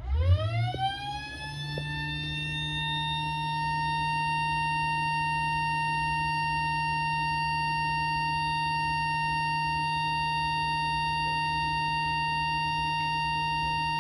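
A siren winds up over about two seconds to a steady wail and holds it there.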